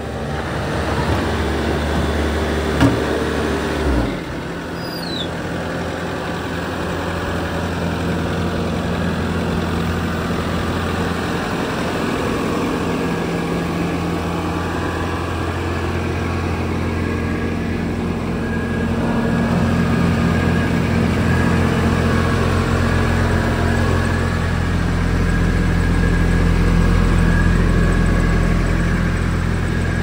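Bobcat T450 compact track loader's 61.1 hp Tier 4 diesel engine running steadily at idle. There is a single sharp knock about three seconds in, and the engine sound grows louder in the second half.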